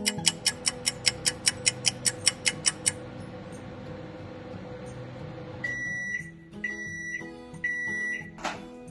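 Microwave oven running with a steady hum, then beeping three times, evenly spaced, as its cooking cycle ends. A fast run of ticks comes first, and a single click near the end.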